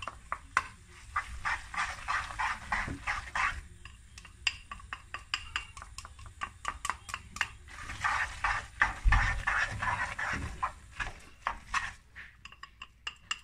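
Utensils clicking and scraping against a frying pan and a small glass bowl as beaten egg yolks are scraped out and stirred into tagliolini, with irregular sharp clinks throughout and two longer stretches of busier stirring.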